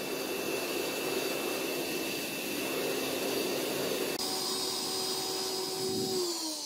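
Homemade metal-melting furnace running: a steady rushing noise with a high whine, which shifts about four seconds in and then falls in pitch near the end as the molten brass is poured.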